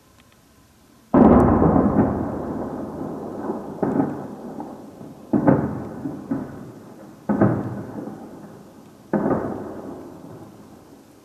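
Five heavy explosions from bombardment, one every two seconds or so, each followed by a long echoing rumble that dies away; the first, about a second in, is the loudest.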